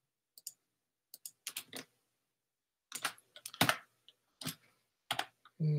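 Computer keyboard being typed on, single keys and short runs of keystrokes tapped at an irregular pace with pauses between.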